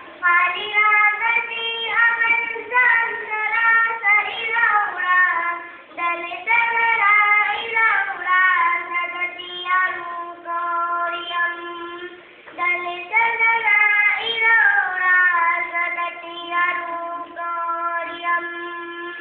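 A girl singing solo in long melodic phrases with held notes, pausing briefly twice between phrases, with no instruments heard.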